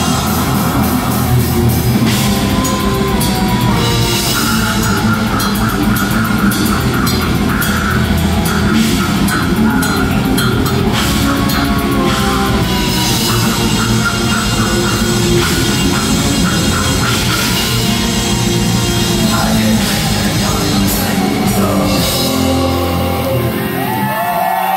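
Live extreme metal band playing loud, with fast drumming, distorted guitars and keyboards, recorded through a phone in the crowd. Near the end the bass and drums drop away and the crowd starts whooping and cheering.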